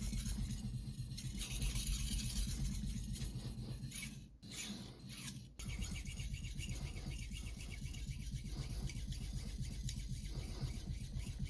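A Shun nakiri's blade being stroked back and forth on a whetstone: a steady, rhythmic scraping, with a short break about four seconds in.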